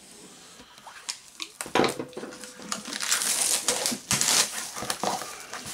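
Plastic shrink-wrap being torn and peeled off a board game box: irregular crinkling and crackling with sharp snaps, busiest about three seconds in.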